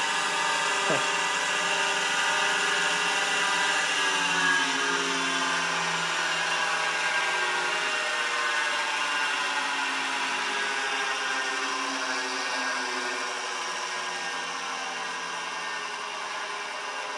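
Vintage 1981 Quantum 2040 8-inch hard drive's 115 V AC spindle motor and platters spinning with a steady mechanical whir. After about four seconds the whir's pitch slowly falls and it gradually grows quieter.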